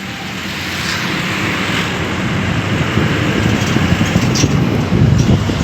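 Highway traffic and road noise heard while on the move, with a low rumble that grows steadily louder.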